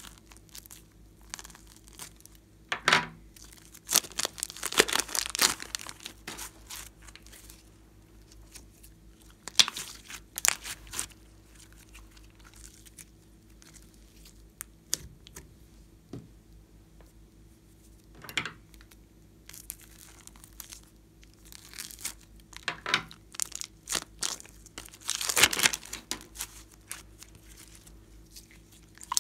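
Plastic piping bag crinkling and sticky slime squishing as it is squeezed out and then stretched and pulled apart by hand, in scattered short bursts with quiet gaps between.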